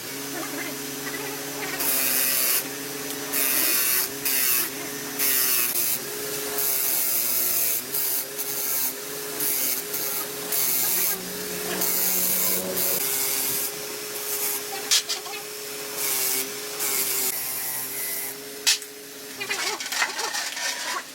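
Repeated bursts of hissing spray, each about a second long, starting and stopping abruptly, over a steady wavering hum.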